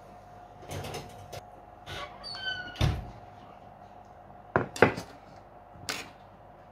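Kitchen clatter of a pizza being taken out of the oven: a short squeak and a deep thud as the oven door is shut, about three seconds in, then sharp knocks as the wooden pizza peel is set down on a metal tray, the loudest about five seconds in.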